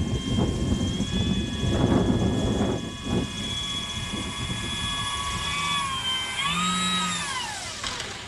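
Radio-controlled gyrocopter's electric motor and propeller whining in flight, holding a steady pitch with a brief rise in speed. The whine then slides down in pitch near the end as the throttle is cut and the model lands.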